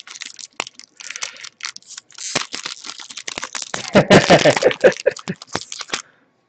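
Foil trading-card booster pack wrapper crinkling and tearing as it is opened by hand, an irregular crackle that stops about six seconds in. A brief mumbled voice sounds about four seconds in.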